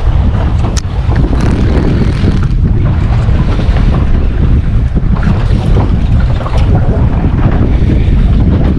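Strong wind buffeting the microphone in a steady, gusting rumble, with the wash of the open sea and the boat beneath it.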